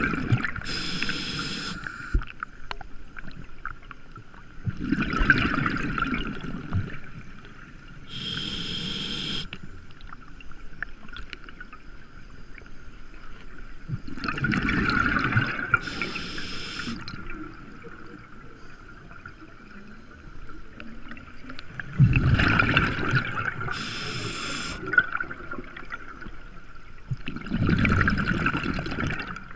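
A scuba diver breathing underwater through a regulator: a short hissing inhale, then a long burble of exhaled bubbles, repeating about every six to eight seconds over a faint steady tone.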